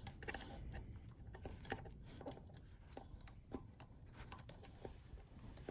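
Faint, scattered light clicks and taps of small metal parts being handled while a locking hub's internals are fitted into the wheel hub.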